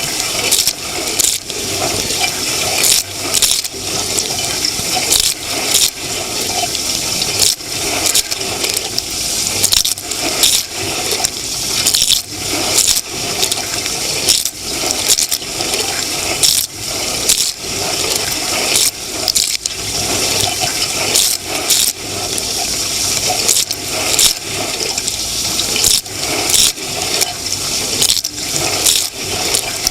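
Water spraying and splashing inside a running dishwasher, heard from within the tub, in a dense rush with frequent irregular surges of spattering.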